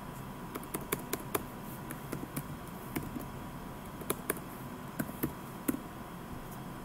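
Computer keyboard being typed on: irregular single keystrokes with short pauses between them, stopping about a second before the end.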